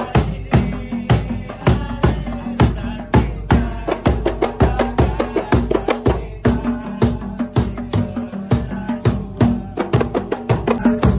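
Kompang ensemble playing: several hand-struck Malay frame drums beating a fast interlocking rhythm, with a large barrel drum struck with a stick underneath.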